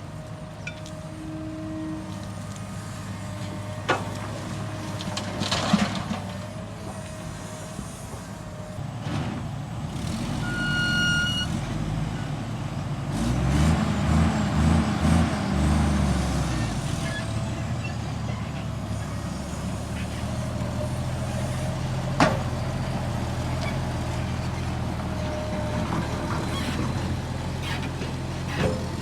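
Heavy diesel construction machinery running steadily, with a few sharp knocks. A brief high beep sounds about a third of the way in, and the engine pulses louder under load for a few seconds soon after.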